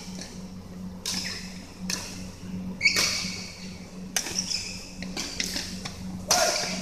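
Badminton rally: rackets smacking the shuttlecock about once a second, each hit sharp and echoing in a large hall, over a steady low hum.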